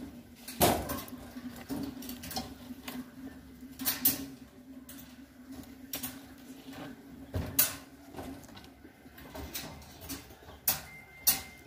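Irregular metal knocks and clicks as the steel-tube frame and welded wire-mesh panels of a pet cage are handled and fitted together, over a steady low hum.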